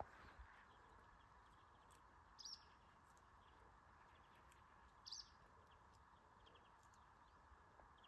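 Near silence with a faint bird giving a short high call twice, about two and a half seconds apart.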